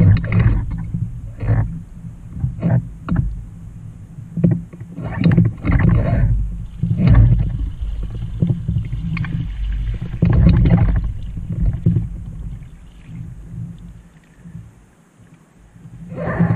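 Water splashing and sloshing against a kayak's hull, in irregular bursts over a low rumble, as the paddler braces on an orange paddle float beside the boat. It dies down a couple of seconds before the end, then the splashing comes back as the kayak tips over again.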